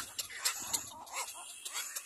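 Little black cormorant chicks calling from the nest: a quick run of short, whining cries, about four a second, with sharp high clicks among them.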